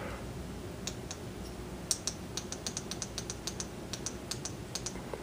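A string of small, sharp clicks, irregular and a few a second, starting about a second in: a light's dimmer control being clicked repeatedly to turn the lighting down.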